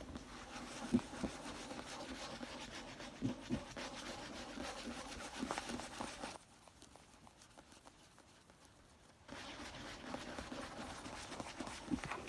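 Scratching on a book, a steady rough rubbing, with a few soft taps mixed in. It stops for about three seconds past the middle, then starts again.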